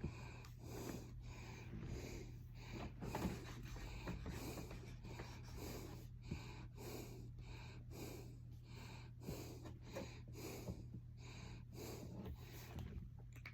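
Pen scratching on paper in quick short strokes as words are written, with faint breathing close to the microphone over a low steady hum.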